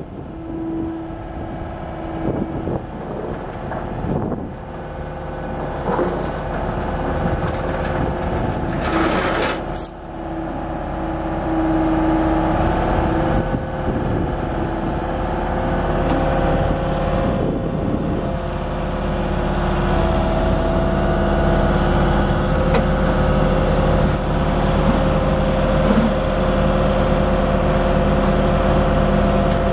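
Bobcat 435G compact excavator's Kubota V2403 four-cylinder diesel engine running steadily, with a few held higher whining tones over the engine note. It grows louder about a third of the way in and again past the middle.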